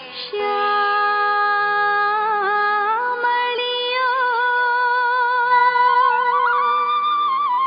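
Opening of a Jain diksha geet (devotional song): one slow melodic line of long held notes, bent in small ornaments, over a faint low drone.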